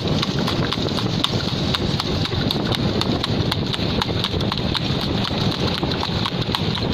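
Hooves of a cart horse trotting fast on an asphalt road: a quick, even clip-clop of hoofbeats, several a second, over a steady low rumbling noise.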